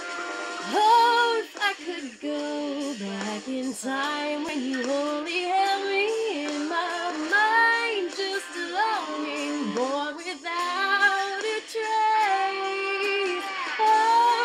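A woman singing a slow pop-folk ballad with musical accompaniment, holding and bending long notes.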